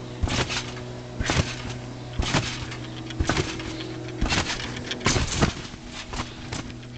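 A trampoline bed thumping as someone bounces on it, about one landing a second, each landing a short cluster of knocks. The loudest landing comes near the end, followed by a couple of smaller rebounds.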